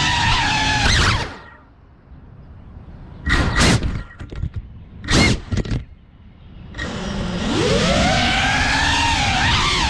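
FPV quadcopter's brushless motors whining under throttle, then cut back to near idle about a second in. Two short throttle blips follow, and the motors spool back up from about seven seconds, the whine rising in pitch as the drone speeds up.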